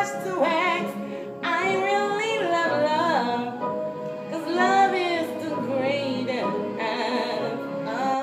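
Music: a woman singing in long, gliding vocal runs over a sustained backing.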